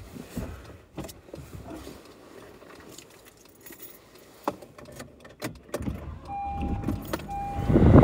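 Inside a car: scattered clicks and knocks, then windshield wipers sweeping snow off the glass, growing louder near the end. Two short electronic beeps sound just before the sweep peaks.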